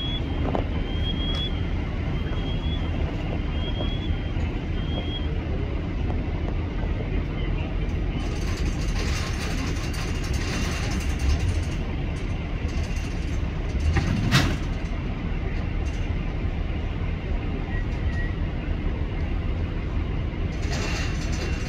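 Heavy diesel machinery running steadily with a low rumble, and one sharp knock about two-thirds of the way through.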